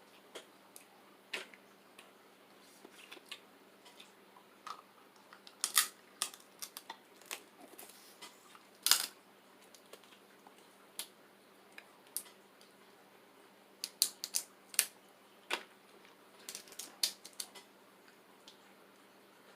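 Crab-leg shells being cracked and snapped open by hand: irregular sharp cracks and clicks, the loudest about six and nine seconds in, with quick clusters near the end.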